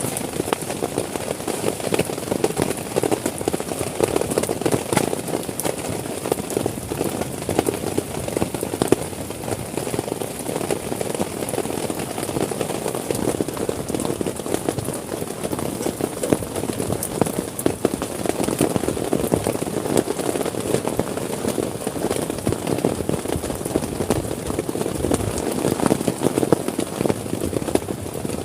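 Heavy rain falling steadily on a tent, a dense patter of drops.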